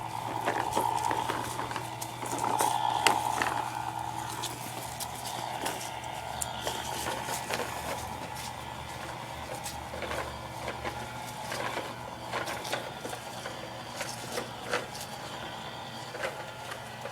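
Toy lawnmower being pushed, giving off irregular clicks and rattles.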